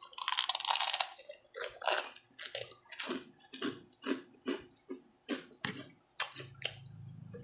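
A person biting into and chewing crispy pork chicharon close to the microphone. A crunchy bite comes first, followed by crunching chews about three times a second.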